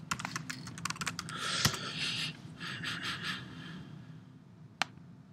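Computer keyboard keystrokes in a quick run as a web address is typed, with a sharper key press about a second and a half in. A soft breathy hiss follows for a couple of seconds, and there is a single click near the end.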